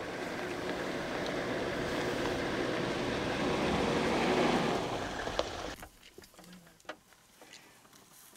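A steady engine hum with rushing wind noise, swelling a little and then cutting off abruptly about six seconds in. After that only a quiet background with a few faint clicks remains.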